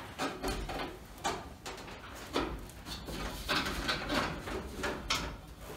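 Metal stove-pipe fittings scraping and knocking against each other in irregular bursts as the pipe is worked into a through-the-wall chimney kit.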